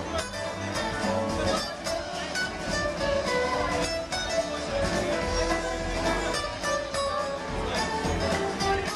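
Live string band playing: mandolin, banjo, acoustic guitar, fiddle and upright bass over a steady drumbeat, heard through a pocket camcorder's microphone from within the audience.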